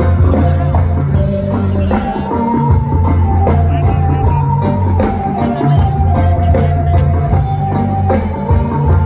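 Live band playing an instrumental passage of a pop-rock song: a steady drum-kit beat, a strong bass line and a held melody line that steps from note to note.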